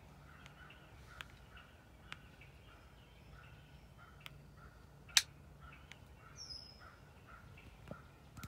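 Wild turkeys calling softly: a run of quiet clucks and purrs repeating every fraction of a second. A single sharp click about five seconds in is the loudest sound, and a short high bird chirp follows soon after.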